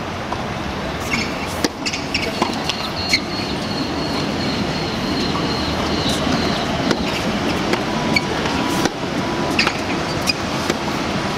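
Tennis balls struck back and forth in a baseline rally on a hard court: sharp, irregular racket hits and ball bounces over a steady murmur of the crowd.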